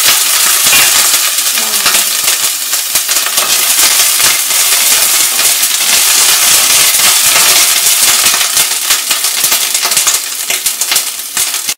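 Chopped ginger, curry leaves and mustard seeds sizzling and crackling in hot coconut oil in a stainless steel pan, stirred with a wooden spatula.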